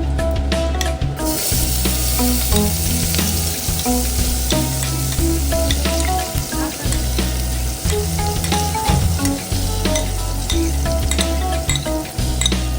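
Food sizzling in hot oil in a pan, starting suddenly about a second in, with occasional clicks of stirring.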